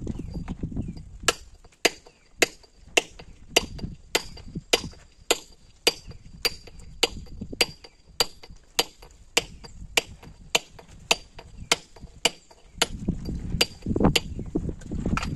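Hand hammer striking a steel chisel held against a stone block, with sharp metallic blows in a steady rhythm of a little under two a second. This is hand-scoring a line across the stone to mark it for splitting.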